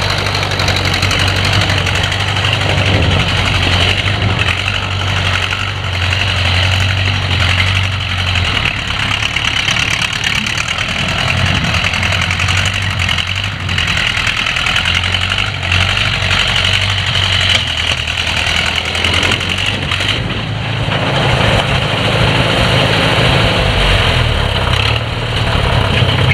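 Allis-Chalmers WD45 tractor engine running. Its low note is steady for about the first eight seconds, then turns uneven and shifting for the rest.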